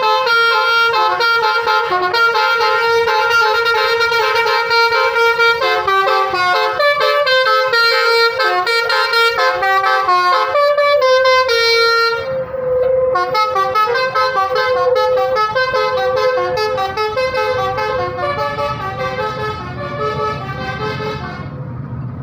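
A bus's telolet 'basuri' musical air horn playing a fast tune of short, rapidly changing horn notes. About halfway through the sound turns duller and a low engine rumble comes in beneath the notes, which thin out near the end.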